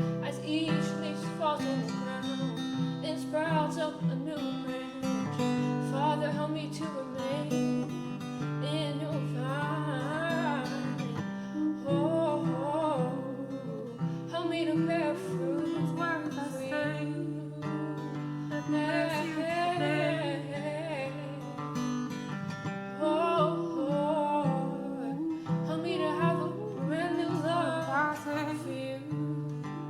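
Acoustic guitar playing chords under a voice singing a wavering melody, with no clear words: a worship song.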